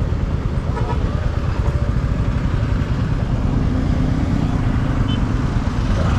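Royal Enfield Classic 350's single-cylinder engine running at low speed in town traffic, with the engines of cars and scooters around it.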